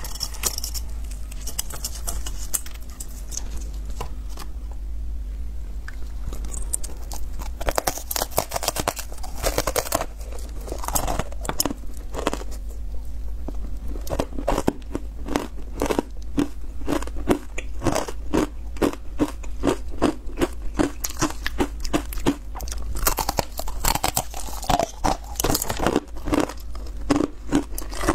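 Chunks of ice coated in matcha powder being bitten and chewed close to the microphone. Quieter at first; after several seconds crisp crunching takes over and settles into steady chewing crunches about two or three a second.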